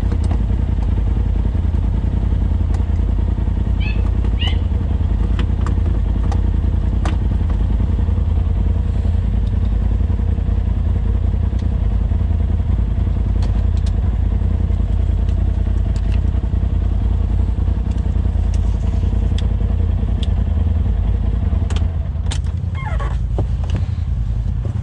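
Polaris RZR side-by-side engine idling with a steady, unchanging drone, and a few light clicks and knocks over it.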